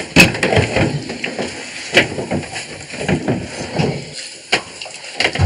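Scattered clinks and knocks of a ladle against a metal cooking pot and china plates as soup is served out.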